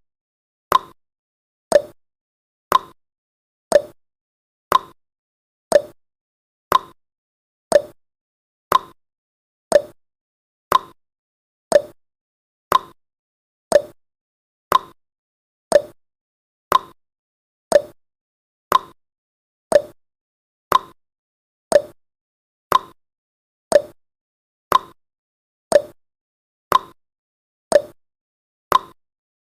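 Countdown timer's ticking sound effect: one short, sharp tick each second, evenly spaced.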